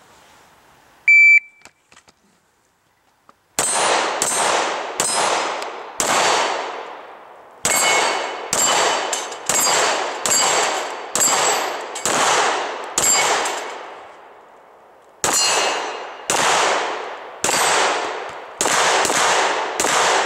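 A shot timer beeps once about a second in. After a short silence a pistol fires about twenty rapid shots at steel targets, with a brief pause before the last strings. Struck steel plates ring with a short metallic clang after many of the shots.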